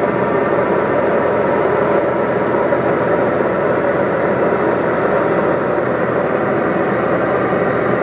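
Steady drone of a light aircraft's piston engine and propeller, heard from inside the cabin in cruise.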